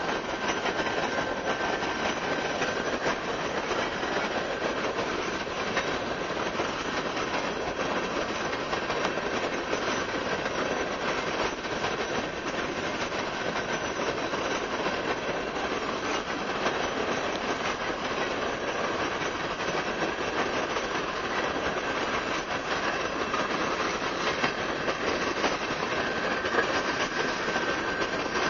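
Freight train of open-top hopper cars rolling past: a steady rumble and rattle of wheels on rail, with a thin high wheel squeal that is strongest near the start and the end.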